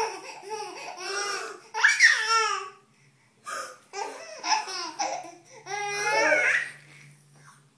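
Baby boy laughing hysterically, in several high-pitched fits with short pauses between them.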